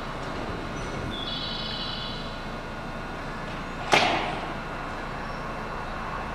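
A short high electronic chime about a second in, then one sharp slam near four seconds with a brief hiss after it, typical of a JR West 221 series train's sliding doors shutting before departure, over a steady hum.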